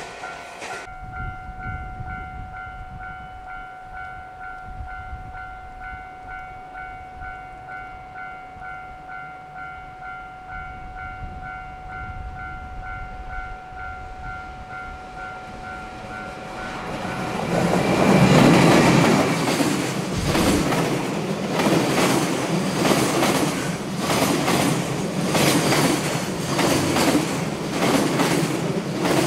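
Level-crossing alarm ringing steadily, then an EF210 electric locomotive and its train of container flatcars pass close by, loud, with a quick run of wheel clacks over the rail joints.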